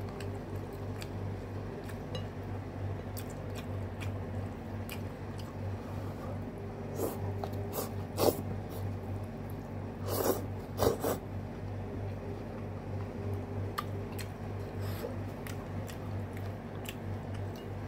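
A person eating with chopsticks from a bowl, chewing and slurping food, with a few louder slurps about eight and ten to eleven seconds in. A steady low hum runs underneath.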